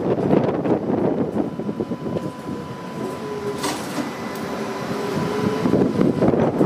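Older streetcar running on its track with the windows open: wind buffets the microphone, easing off in the middle, where a steady whine from the car comes through. There is a single sharp click about halfway.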